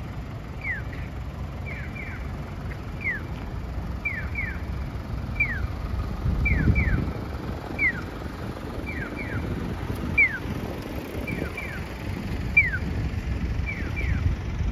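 Electronic pedestrian-crossing signal chirping in the Japanese call-and-response pattern: a single falling 'piyo' answered by a double 'piyo-piyo', alternating about once a second, the sign that the crossing light is green. Wind rumbles on the microphone underneath.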